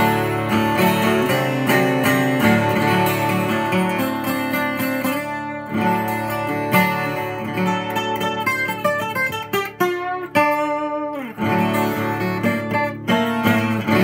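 Seagull S12+ 12-string acoustic guitar, strung with old strings, played with a pick: picked notes and chords ringing out, with short breaks about six and eleven seconds in.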